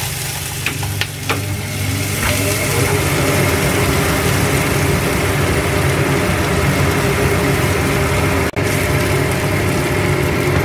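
Aromatics and small dried anchovies sizzling as they are stir-fried in a frying pan, with a few sharp taps of the utensils against the pan in the first two seconds. Underneath runs a steady machine hum.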